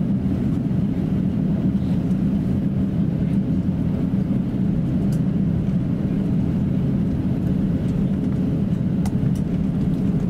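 Cabin noise of an Airbus A350-900 taxiing: a steady low rumble from inside the cabin as the airliner rolls along the taxiway with its engines at idle.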